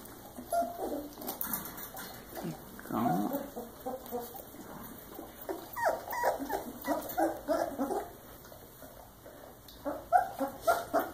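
A litter of three-week-old puppies whimpering and squeaking in short, high calls that come in bunches, with a quieter spell shortly before the end.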